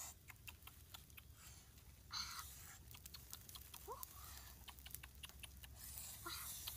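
Sparse sharp clicks and light crackling from dry sticks being handled over a small wood fire, with two short rustles.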